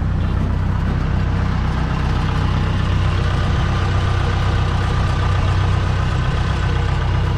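Kubota DC70 combine harvester's diesel engine running steadily, a loud constant low hum.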